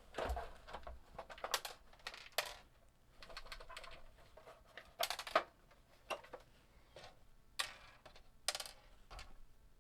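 Irregular sharp clicks, small metallic clinks and short scrapes of a screwdriver working the case screws of a Commodore 1541-II floppy drive, with the screws set down and the plastic case handled as it is opened.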